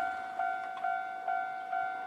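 Japanese railway level-crossing warning bell ringing, a steady two-tone ding repeating a little over twice a second.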